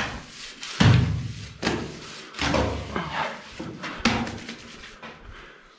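Shovel scraping and slapping through wet mortar in a metal mixing trough, about one stroke a second, as the mortar is mixed for bricklaying.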